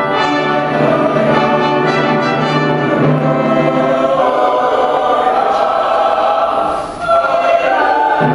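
Chancel choir singing a hymn in held, full chords with organ and brass accompaniment. About seven seconds in the sound dips briefly, then a new chord comes in.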